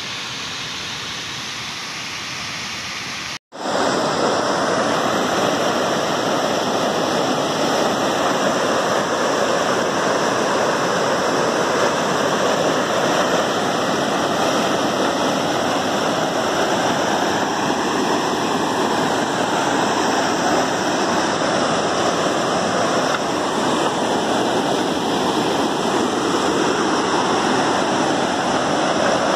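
Mountain stream water rushing and splashing steadily over a small weir. About three and a half seconds in the sound cuts out for a moment and comes back louder and closer.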